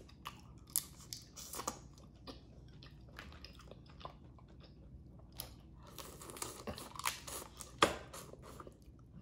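Eating boiled crawfish: chewing and biting through shells, a scatter of crunches and sharp clicks. The loudest click comes a little before the end.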